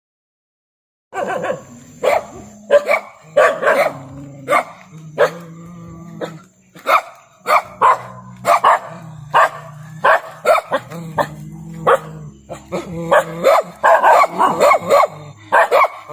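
A pet dog barking over and over in short sharp barks, about one to two a second, starting about a second in, over a low steady hum.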